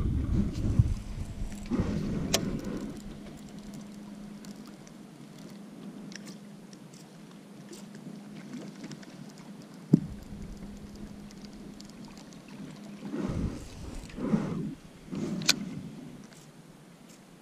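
Quiet handling noise of fishing tackle and a kayak: a faint steady low hum, a few sharp clicks, and one sharp knock about ten seconds in, which is the loudest sound. Some low rumbling comes near the end.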